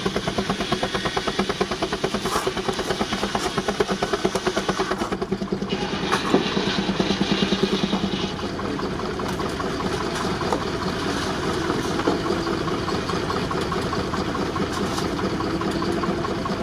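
A 19-65 Uniflow Baker steam traction engine running a sawmill by belt. Its exhaust beats come rapidly and evenly for about eight seconds, then give way to a steadier mechanical running sound with a faint held whine.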